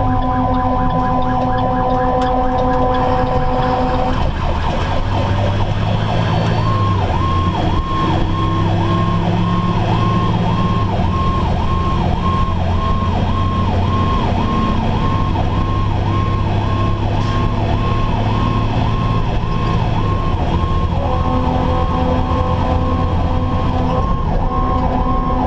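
Pierce fire engine running emergency traffic: its siren cycles up and down about one and a half times a second over the steady drone of the diesel engine, with a long steady horn blast in the first few seconds and another near the end.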